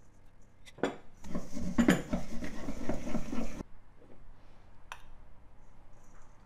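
A utensil clattering and scraping in a bowl for about two seconds, in the tossing of halved boiled potatoes with oil, seasonings and grated parmesan. It stops abruptly, with a single click before and after.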